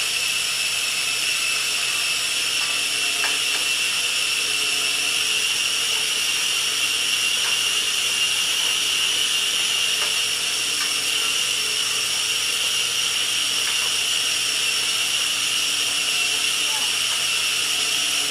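Turkey meatballs sizzling steadily in a frying pan as they brown, with a few faint crackles, over a constant high-pitched whine from a running kitchen appliance.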